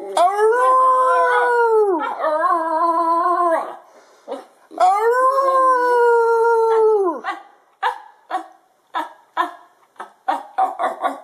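Basenji howling: long drawn-out howls that rise, hold and fall away at the end, followed by a run of short clipped notes about two a second.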